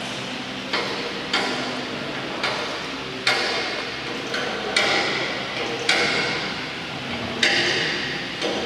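A hammer striking metal in a workshop, about eight blows at uneven intervals of roughly a second, several of them leaving a short metallic ring.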